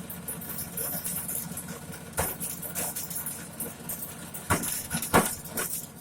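Engine-driven corn sheller running with a steady drone, with a few sharp knocks about two, four and a half and five seconds in as corn cobs go through it. It keeps running under load without stalling.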